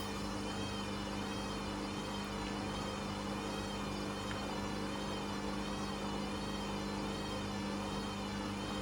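Hoover Custom Vision washing machine running steadily: a constant hum with a high motor whine that wavers slowly up and down in pitch.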